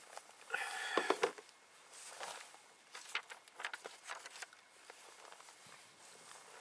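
Scattered light rustles and clicks, as of clothing and hands moving, after a short pitched call of under a second about half a second in.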